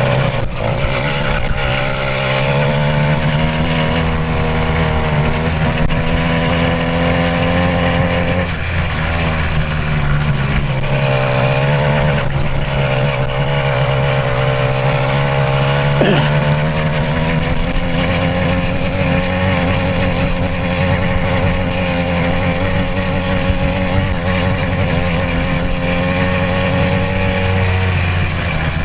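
Small 66cc two-stroke motorized-bicycle engine running under load at or near full throttle, holding a steady pitch. The pitch dips briefly about a third of the way through, and there is a sharp knock about halfway.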